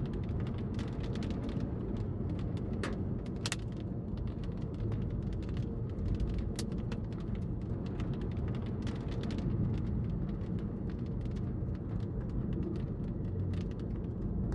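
Steady low rumble of a car's tyres and engine, heard inside the cabin while driving, with scattered sharp ticks.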